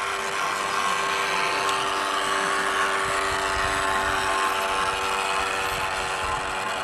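Electric motor of a radio-controlled model boat running at speed: a steady whine of several pitches over a hiss, a little louder midway.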